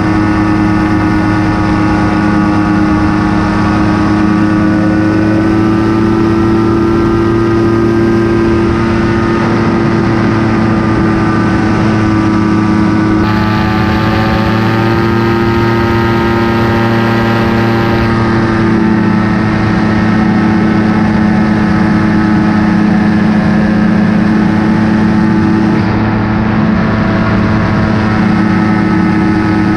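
Paramotor engine and propeller running steadily in flight, a loud continuous drone whose pitch wavers slightly about halfway through.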